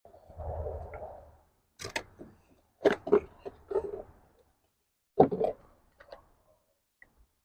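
Unpacking and handling the parts of a new digital deadbolt: a rushing slide of packaging for about a second, then a string of sharp knocks and clicks as hard pieces are picked up and set down.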